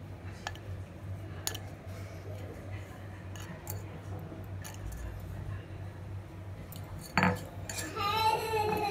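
Spoon scraping and tapping against a bowl as dry grated-coconut chutney is tipped out onto a ceramic plate: scattered light clinks, with one louder knock about seven seconds in.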